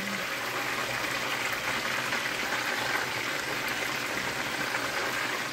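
Chicken pieces frying in hot oil in a deep skillet, a steady sizzle while they are turned over with tongs. The sizzle has settled down, the cook's cue that the first side is done and it is time to turn the pieces.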